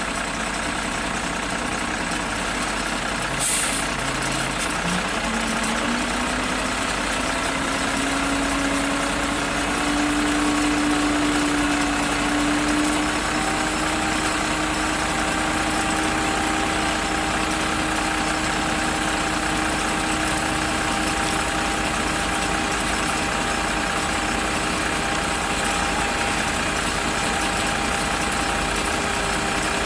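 Heavy truck's diesel engine running while a conveyor-floor trailer unloads sand. There is a short hiss of air about three and a half seconds in, then a whine that rises in pitch over about five seconds and holds.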